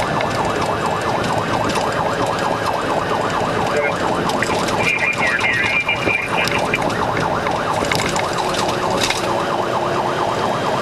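Police patrol car siren on a fast yelp, rising and falling several times a second without a break. A higher steady tone sounds briefly about five seconds in.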